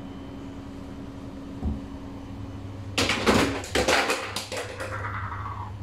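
Low steady hum from a Siemens iQ500 washing machine, a single thump about one and a half seconds in, then a burst of clunks and rattles from about three seconds in.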